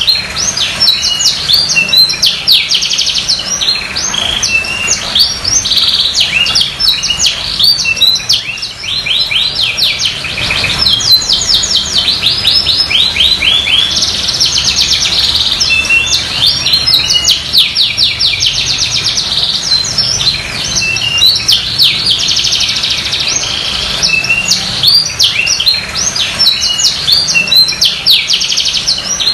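Domestic canary in full song: a long, unbroken run of fast trills and rolls, the phrases changing every second or two with no pause.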